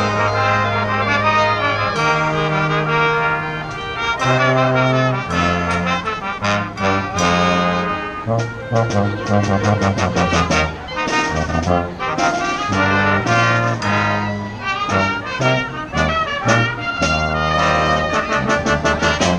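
Live brass band playing a lively tune: a sousaphone plays a bass line of long low notes under trumpets and other horns.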